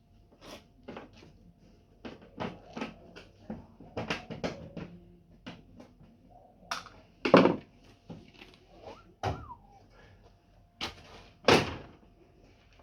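Irregular clicks, knocks and clatter of hard objects being handled, with two louder thumps, one about halfway through and one near the end, and a faint steady hum underneath.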